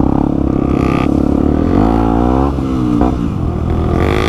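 Single-cylinder four-stroke dirt bike engine running under way on a dirt track. About two seconds in the revs climb and then drop back before picking up again as the throttle is worked.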